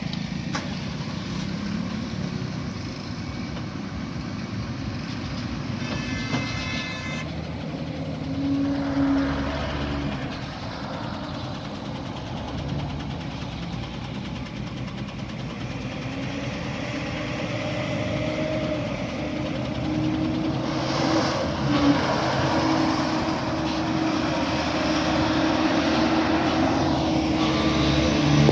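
Ashok Leyland container truck's diesel engine running as the truck crawls past at low speed. A motorcycle goes by near the start, and there is a brief high tone about six seconds in.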